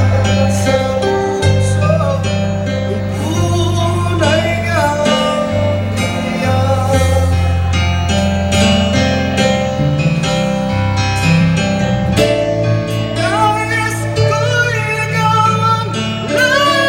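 Live acoustic band playing a ballad, with a steady bass line, guitar and light drums and cymbals, and a voice singing the melody in places.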